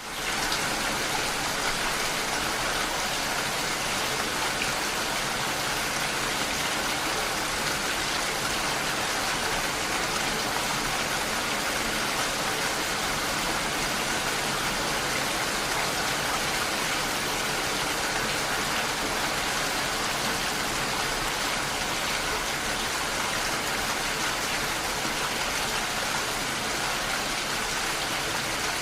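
Steady heavy rain pattering on window glass, an even rushing hiss that comes in abruptly right at the start and then holds without change.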